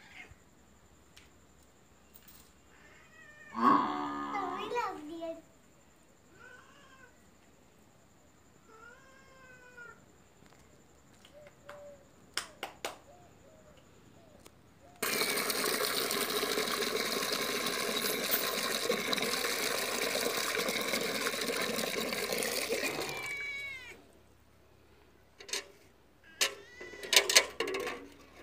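A domestic cat meowing: a loud call about four seconds in, then a few fainter calls that rise and fall. In the middle a loud steady noise runs for about eight seconds, and near the end come a few sharp knocks.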